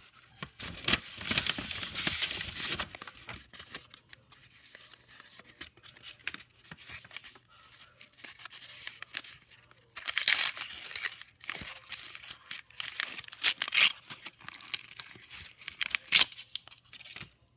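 Homemade paper packaging being torn open and crinkled by hand, in two louder bouts: one right at the start and one from about ten seconds in, with lighter rustling between.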